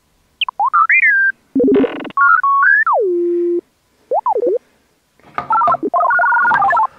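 Electronic sound effects: a string of sliding whistles and beeps, with a short buzz, one tone that slides down and holds low, and a fast warbling run of beeps near the end.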